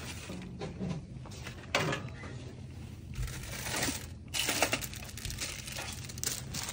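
Plastic-packaged merchandise rustling and crinkling as a hand rummages through items on a store shelf, coming in uneven spells.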